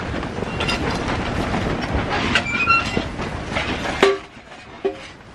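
Strong wind rumbling and rattling against the tent while the door of a small wood stove is worked open, with short metallic squeaks. A sharp metal clank about four seconds in, then much quieter.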